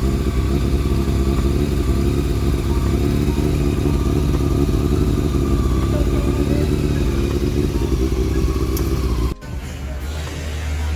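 Honda CB400 motorcycle engine idling steadily through a newly fitted stainless-steel SC Project slip-on exhaust. The sound cuts off abruptly about nine seconds in, leaving a quieter low hum.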